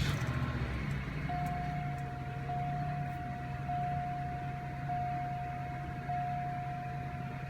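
2005 Cadillac DeVille's Northstar V8 starting and then running rough, thumping from a misfire on one or two cylinders. About a second in, a steady high electronic warning tone from the car begins and keeps sounding.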